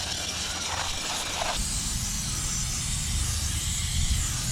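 Aerosol brake cleaner spraying from a nearly empty can in one steady hiss, growing brighter about a second and a half in.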